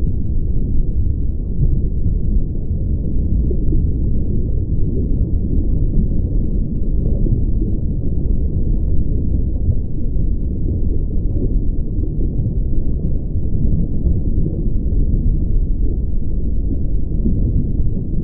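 Steady, loud, deep rumbling noise with no tone or rhythm in it and nothing high-pitched.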